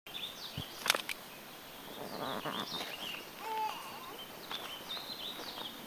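Several small birds chirping and singing, with a sharp click just under a second in.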